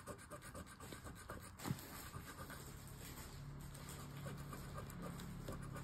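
A coin scratching the coating off a paper scratch-off lottery ticket in short, repeated, faint strokes.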